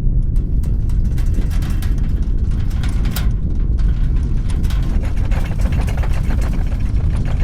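Earthquake sound: a loud, continuous deep rumble, with dense rattling and crackling clicks setting in just after the start.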